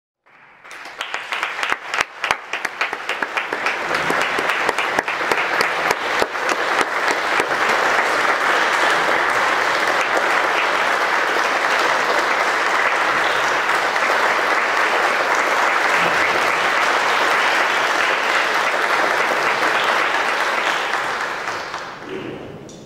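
Concert-hall audience applauding. Scattered claps at first swell within several seconds into full, steady applause, which fades away near the end.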